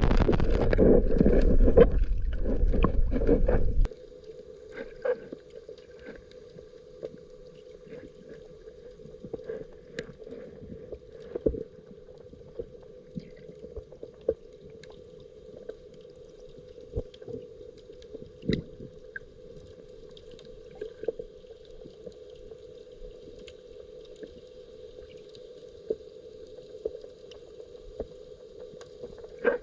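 Water sloshing loudly against a camera in a waterproof case, then cutting off suddenly about four seconds in as it goes under. A muffled underwater hum follows, with scattered sharp clicks and ticks.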